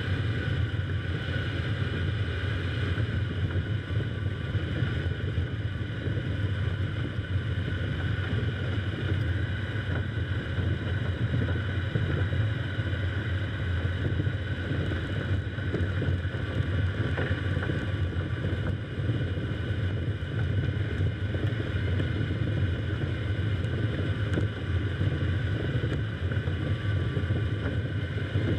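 Car driving slowly over an ice- and slush-covered road: a steady low rumble of engine and tyre noise, with faint steady whining tones above it.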